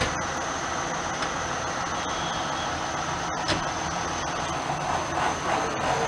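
A convoy of tractors running in the distance: a steady, rumbling drone of engines, with faint pitched sounds coming in near the end.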